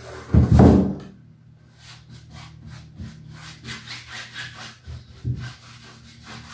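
Paintbrush scrubbing primer onto the cotton-canvas edges of a wooden board in quick back-and-forth strokes, about three a second. A heavy thump about half a second in as the board is moved, and a lighter one a little after five seconds.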